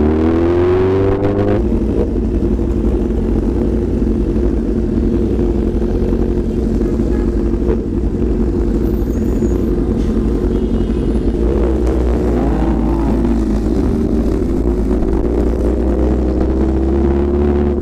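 BMW S1000RR's inline-four engine under way, heard from the pillion seat: it climbs in pitch as it pulls away over the first second or two, then runs at a steady cruise. About two-thirds of the way through the pitch dips and rises again, and it climbs once more near the end.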